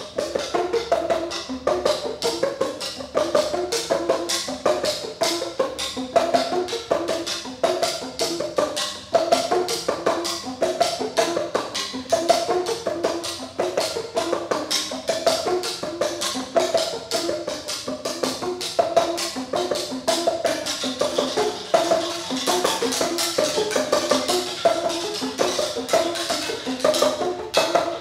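A percussion trio plays custom-made ceramic tube instruments, striking the open ends of hand-thrown clay tubes with flat wooden paddles. The result is a fast, steady stream of pitched strikes in a repeating pattern.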